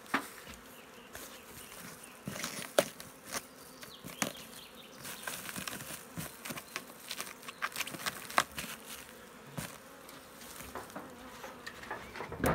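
Honeybees buzzing around an open hive, with many short rustles and knocks as the hive is covered with its foil insulation sheet and lid.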